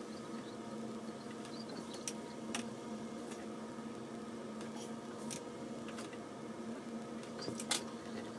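Faint ticks and scratches of a fine watercolour brush dabbing and dragging on cold-press watercolour paper, a handful scattered a second or so apart, over a steady low hum.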